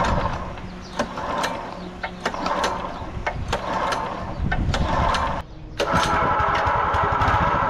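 Small petrol engine of a homemade longtail boat motor running unevenly, with a sharp tick about every half second. About five seconds in it breaks off briefly, then runs steadily and faster.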